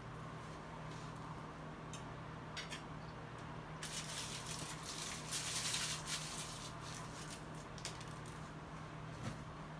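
Quiet room tone with a steady low hum and a few faint clicks; about four seconds in, a couple of seconds of rustling as things on the kitchen counter are handled.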